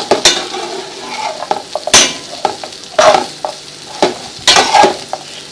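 Bread pieces frying in ghee in a metal tray, sizzling, while a utensil stirs and scrapes them with several sharp strokes.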